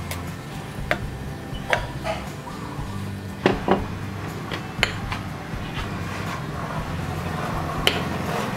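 Scattered clinks and knocks of small ceramic bowls and a metal spoon being handled and set down on a plate, over a low steady hum.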